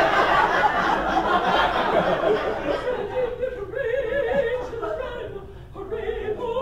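Theatre audience laughing, then two women singing a song together, their voices wavering up and down, from about three seconds in.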